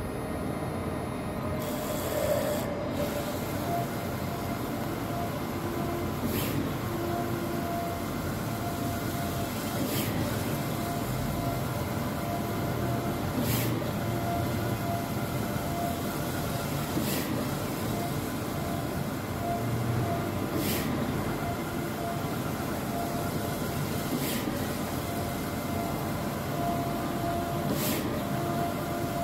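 Large-format eco-solvent printer (3.2 m Jade, four Epson i3200 heads) printing: a steady machine running noise from the carriage and media drive, with a short sharp high sound repeating about every three and a half seconds and an on-off whine.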